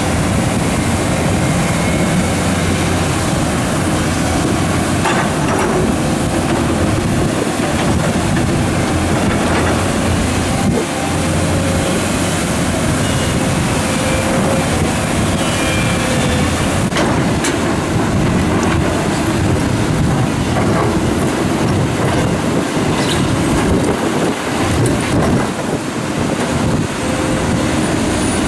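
New Holland E385 crawler excavator's diesel engine running steadily under working load, with a few sharp knocks of the steel bucket and stones against rock, over a steady rush of water pouring over a weir.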